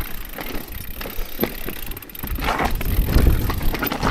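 Orbea Rise e-mountain bike rolling down a rocky trail: tyres crunching over stones and gravel, with sharp clicks and knocks from the bike rattling over rocks. About two seconds in the rumble grows louder and rougher as the bike hits rougher ground.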